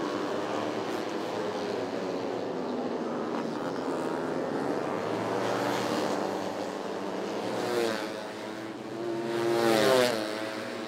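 150 cc four-stroke fuel-injected underbone race motorcycles running at racing revs on track. One bike passes closer about eight seconds in, and a louder one near the end, the engine pitch dropping as each goes by.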